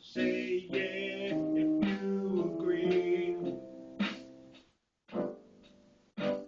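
Electronic keyboard playing an instrumental passage of chords and melody; the sound drops out for a moment about three quarters of the way in, then two separate chords are struck.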